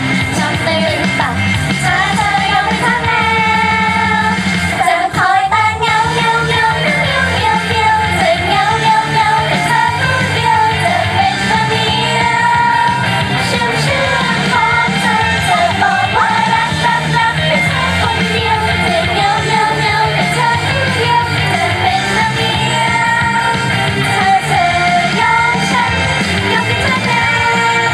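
Thai pop song with singing over a full band backing, played loud throughout.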